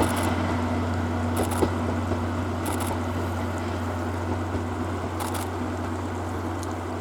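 Steady rumble and hiss of a train running, slowly fading, with several short bursts of rapid camera shutter clicks.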